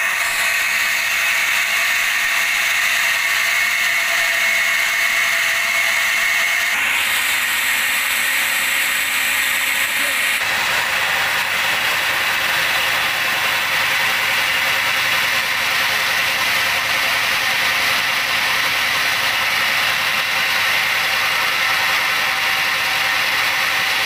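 A large band sawmill running, its blade cutting lengthwise through a big teak log, with a steady mechanical whine. The sound shifts about seven seconds in and again about ten seconds in.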